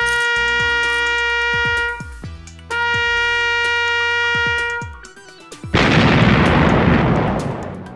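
Trumpet playing two long held notes, then a loud noisy burst like an explosion sound effect about six seconds in, which fades over a second or two.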